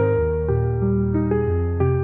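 Background music: soft electric-piano chords changing about every half second.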